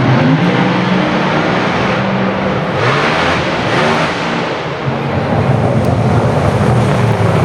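A drag race car's engine running at low revs, its pitch shifting slightly, with a rush of noise about three seconds in.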